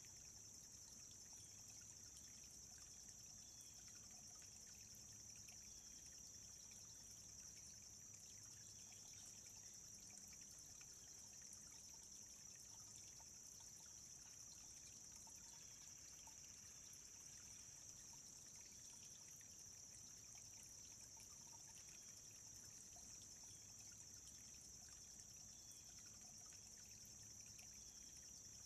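Small woodland stream trickling, faint and steady.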